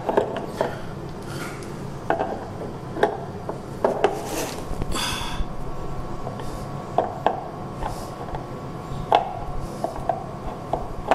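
Handling sounds from fitting and screwing a stand foot onto a flat-screen TV: scattered sharp clicks and knocks with some rubbing, and a short scraping rustle about five seconds in.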